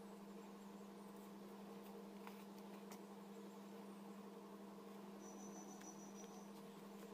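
Near silence: a steady low hum with a few faint ticks.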